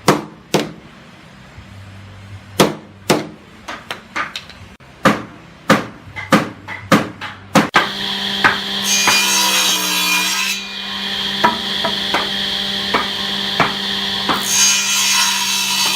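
Hammer blows on wood during bed assembly: sharp knocks at irregular spacing, some in quick pairs. About halfway through, a steady motor hum with a hiss starts and runs on, and lighter knocks continue under it.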